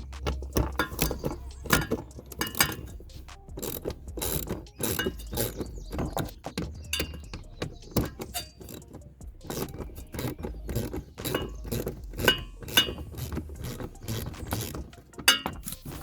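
Irregular metallic clicking and clinking of hand tools and fasteners, a ratchet and 10 mm bolts being worked loose while the mud flap comes off.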